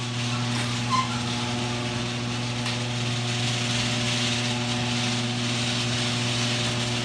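An electric power tool running steadily with a motor hum and a hiss, with a brief spike about a second in, then stopping suddenly at the end.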